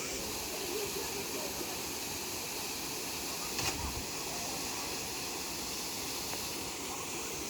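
Waterfall rushing steadily, with one brief knock about three and a half seconds in.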